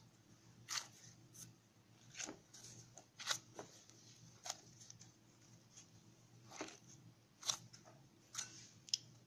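Faint, irregular soft squelches and taps of cornmeal-and-flour dough being kneaded by a gloved hand in a glass bowl, about a dozen short sounds at uneven intervals.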